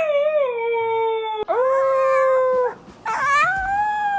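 A dog howling in three long drawn-out calls: the first slides down in pitch, the second holds steady, and the third rises and then falls.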